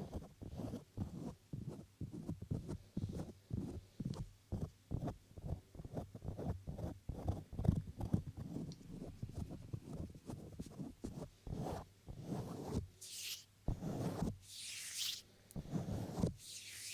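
Bare hands rubbing and stroking right against a binaural microphone in quick, close-set strokes, two or three a second. Near the end the strokes become slower, longer swishes with more hiss.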